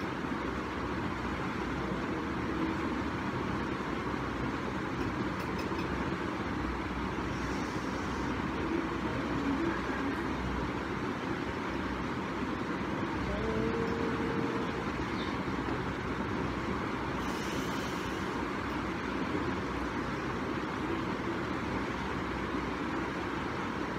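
Steady background noise with no distinct events, traffic-like in character, and a short faint tone about fourteen seconds in.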